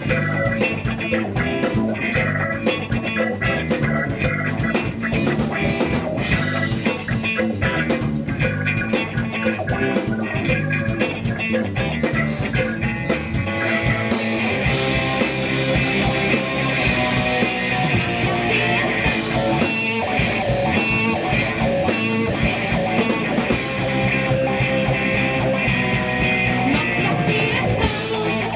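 Live band playing an instrumental passage, an electric guitar carrying the lead over drums, bass and keyboard. The sound grows brighter about halfway through.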